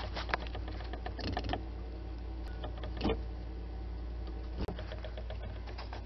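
Kenmore Elite bottom-freezer refrigerator running with a steady low hum, its failing evaporator fan motor turning far too slowly to move air. A few light knocks sound over the hum.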